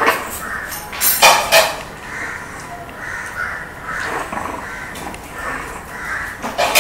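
Shih Tzu puppies about 40 days old yipping as they play-fight, in short cries with a louder pair about a second in.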